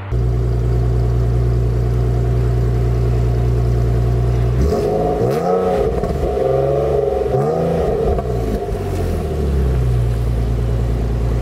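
Infiniti G37's 3.7-litre V6 exhaust idling steadily. It is revved in two short blips near the middle and then settles back to idle. The owner presents this as running with no exhaust leak now that the joints after the catalytic converters have been resealed with new gaskets.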